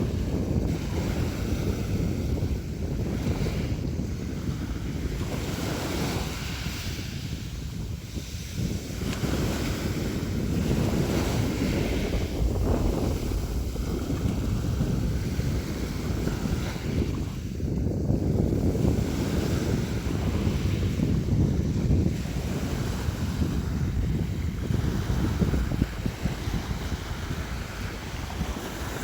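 Sea waves washing in and breaking, the surf swelling and easing every few seconds.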